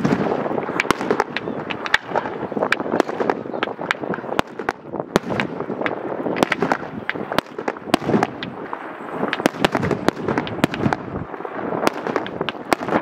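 Professional fireworks display going off: many sharp cracks and bangs in quick, irregular succession over a continuous haze of sound.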